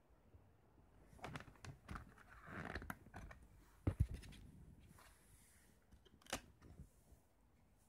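Plastic CD jewel case being handled and opened: a run of clicks and crackling, then a sharp snap just before four seconds in as the case opens. About two seconds later another sharp click as the disc is pressed off the case's centre hub.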